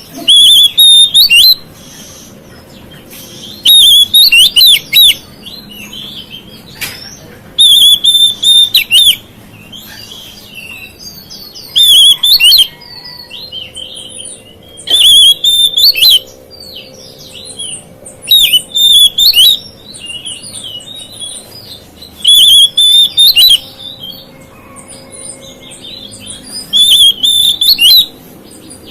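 Oriental magpie-robin (kacer) singing: loud, clear whistled phrases about every three to four seconds, with quieter chirps and twitters between them.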